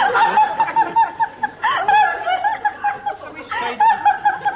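A person giggling in a high voice, a rapid run of short repeated laughs at a few a second, breaking off briefly about three seconds in and then starting again.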